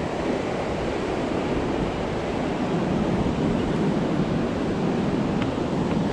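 Steady wash of ocean surf breaking on the beach, with wind noise on the microphone.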